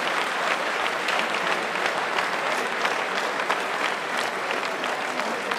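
Large crowd applauding, many hands clapping steadily.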